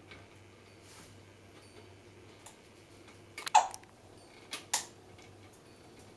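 African grey parrot moving about inside a hanging play tube: a few sharp clicks and taps. The loudest comes about three and a half seconds in, and two quicker ones follow about a second later.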